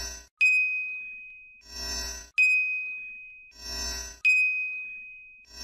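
Cartoon sound effects repeating about every two seconds: a short swelling sound that rises and falls, then a bright bell-like ding that rings on and fades over about a second. The ding comes three times.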